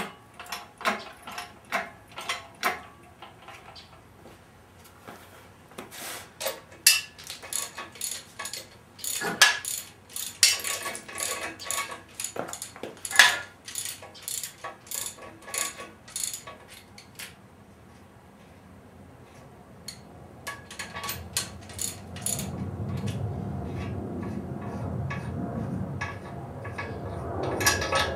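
Ratchet wrench clicking in quick runs on bolts, with metal clinks. From about twenty seconds in, a rougher low rumbling noise rises under the clicks.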